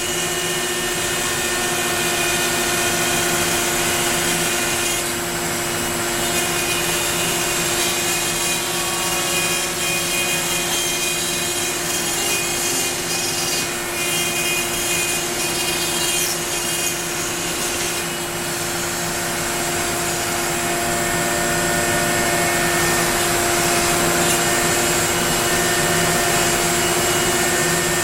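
Onefinity CNC router's spindle running steadily while its bit cuts into wood: a constant whine over a continuous rasping hiss.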